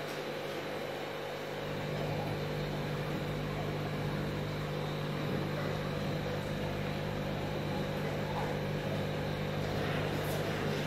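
Steady electric hum and hiss of aquarium pumps and aeration, growing a little louder about two seconds in.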